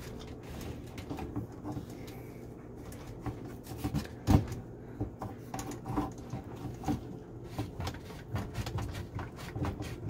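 Plastic drain pipe and hose fittings at a garbage disposal being handled and twisted by hand: irregular clicks, knocks and rubbing, with one sharper knock about four seconds in.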